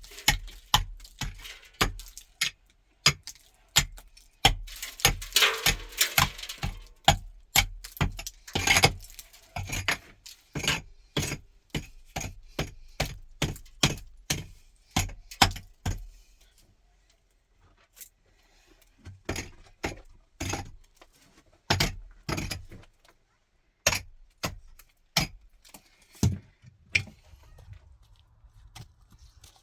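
An irregular series of sharp knocks and clinks of hard objects, up to about two a second, with a denser scraping stretch around five to seven seconds in. A short lull comes past the middle, then sparser knocks.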